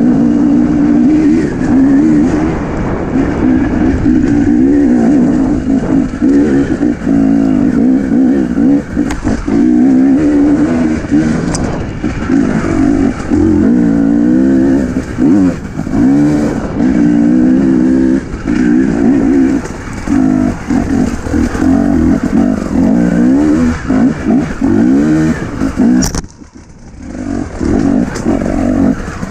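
Husqvarna enduro motorcycle engine running hard over rough ground, its pitch rising and falling constantly as the throttle is blipped and rolled off. Near the end it drops away for about a second, then picks up again.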